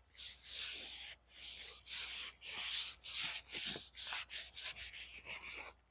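Rubbing strokes scrubbing dirt off an ATV seat cover, about fourteen in all: slower, longer strokes at first, then quicker, shorter ones in the second half.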